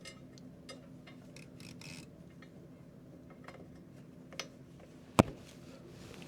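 Light metallic clinks and taps from handling the exhaust manifold, gasket and tools at the engine, with one sharp clank about five seconds in, over a steady low hum.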